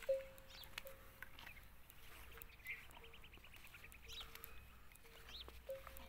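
A camel's neck bell ringing as the camel browses, one steady metallic tone struck irregularly several times, loudest just at the start. Birds chirp and trill in the background.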